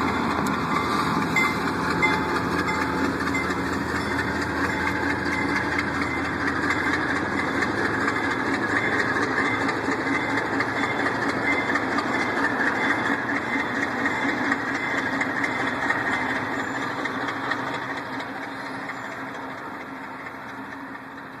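Passenger train rolling past on the rails, a steady running noise of wheels and cars that fades over the last few seconds as the train draws away.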